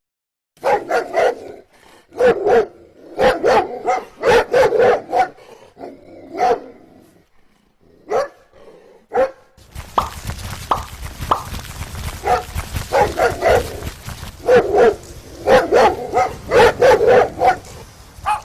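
Dog barking over and over in quick runs of short barks, with a short pause partway through. A steady hiss comes in under the barks about halfway.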